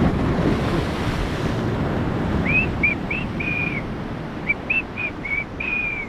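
Surf washing on the shore with wind on the microphone, loudest in the first second or so. From about two and a half seconds in, a person whistles a short tune of about nine notes in two phrases, some notes rising and a few held longer.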